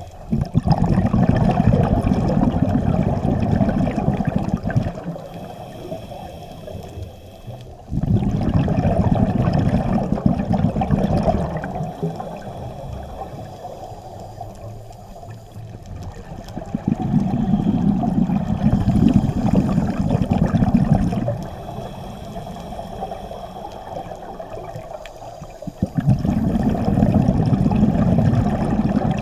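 Scuba breathing heard underwater: four long rumbling bursts of exhaled regulator bubbles, about every eight to nine seconds, with quieter stretches between them carrying a faint hiss of inhalation through the regulator.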